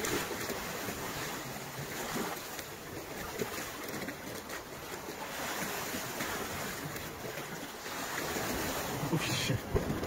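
Sea surf washing and foaming against a rocky shore, with wind buffeting the microphone; a brief louder rush about nine seconds in.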